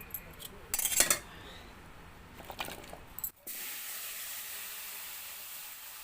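A few clinks and knocks of a utensil against a pan, then, from about three and a half seconds in, a steady sizzle of potato pieces frying in hot oil in a kadai.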